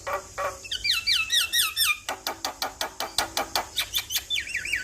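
Male Javan myna (jalak kebo) singing: a fast run of wavy whistled notes sliding up and down, then a rapid series of harsh clicks at about six a second, and another run of wavy whistles near the end.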